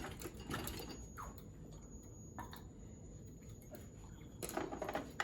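Faint handling noises: a few light clicks and knocks, then a quick run of rattling clicks near the end.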